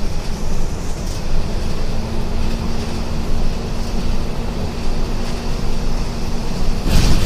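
MWM 7B270 Euro 5 diesel engine of a Volvo B270F bus running steadily, a deep rumble with a steady hum over it. A loud, short noisy burst comes near the end.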